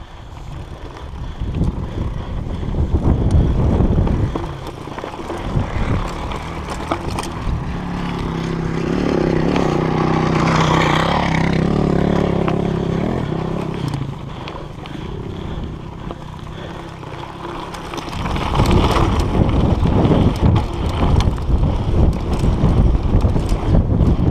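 Mountain bike ridden over a dry dirt trail. Wind buffets the action camera's microphone, the tyres crunch over gravel and the bike rattles and knocks, with a droning hum for several seconds in the middle.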